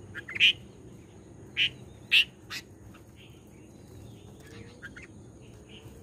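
Red-vented bulbuls giving short calls one at a time, the loudest within the first two and a half seconds and fainter ones after.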